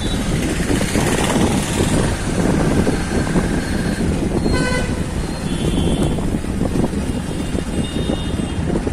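Street traffic heard from a moving vehicle: a steady rumble of engine, road and wind, with a vehicle horn tooting once, briefly, about halfway through.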